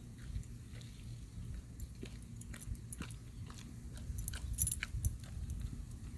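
A dog chewing and licking frozen dog ice cream, with many irregular short crunchy clicks.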